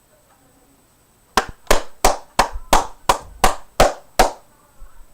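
About nine sharp claps in a quick, even run, roughly three a second, starting about a second and a half in and stopping just past four seconds.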